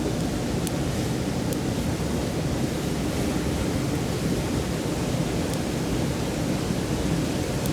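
A mountain stream runs with a steady, low rush of water. Three or four faint snaps from a wood campfire sound over it.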